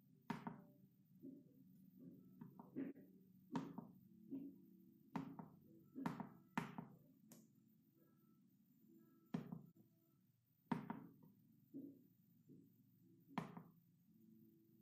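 Push buttons on a homemade DCC command station's keypad being pressed by a finger: about fifteen faint clicks and taps at irregular intervals, over a faint low hum.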